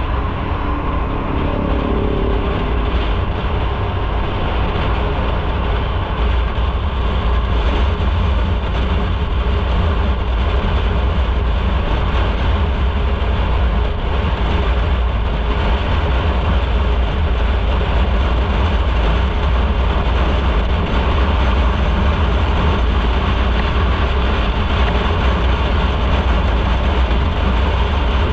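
Motorcycle riding along at steady speed: continuous engine, road and wind noise, dominated by a deep rumble.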